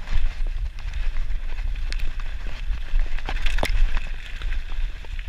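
Mountain bike riding fast down a dirt and gravel forest trail: tyres rolling over the ground under a steady low rumble, with the bike rattling in irregular sharp clicks and knocks over bumps, loudest a little after three and a half seconds in.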